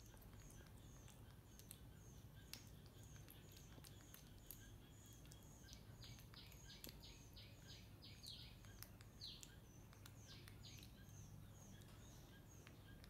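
Faint high chirps, each dropping in pitch, repeating about twice a second, with a quick rapid trill around the middle, over a low steady hum.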